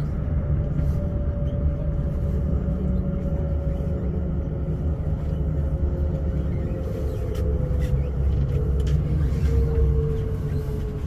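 Elizabeth line Class 345 train heard from inside the carriage: a steady low rumble of the running train, with a motor whine that slowly falls in pitch as the train slows into a station.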